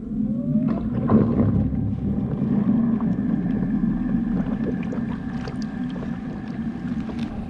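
Newport Vessels NK-180S brushless kayak motor spinning up with a rising whine, then running steadily in reverse with a low hum and a higher whine.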